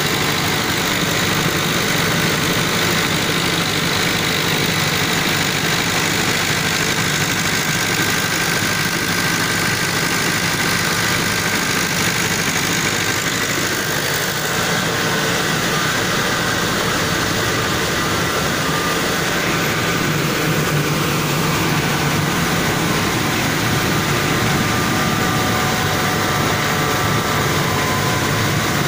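A stationary multi-cylinder engine driving a rice mill, running steadily at a constant speed, with the mill machinery's dense, even noise mixed in.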